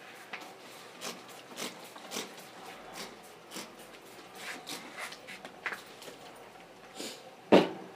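Irregular clicks and rustles of objects being handled, with one loud knock near the end.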